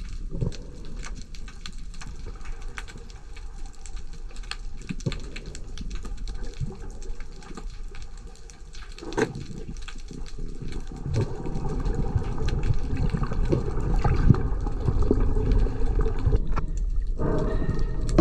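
Underwater sound through a diving camera: a steady crackle of fine clicks over water noise. About nine seconds in comes a single sharp knock, the speargun shot hitting a barred knifejaw, and after it the water rumbles and sloshes louder as the speared fish struggles and the diver swims up.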